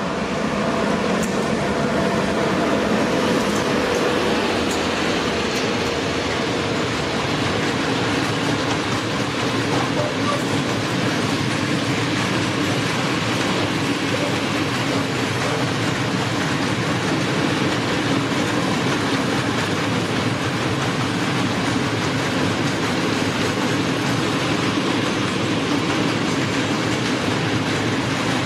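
Freight train passing close by: an ET42 electric locomotive going past at the start, then a long run of empty Fals hopper wagons rolling by with a steady rumble and rattle of wheels on the rails.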